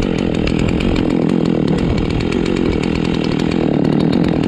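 Chainsaw running steadily at full throttle, cutting into the trunk of a large pine during its felling.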